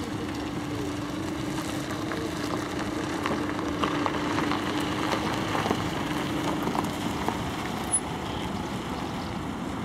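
Steady outdoor engine rumble with a held low hum, and a few faint clicks and a slight swell about four to six seconds in.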